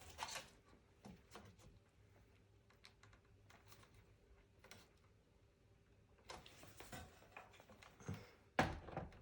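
Faint, scattered plastic clicks and taps as a desktop PC's power connectors and cables are worked loose from the motherboard, with a louder knock near the end.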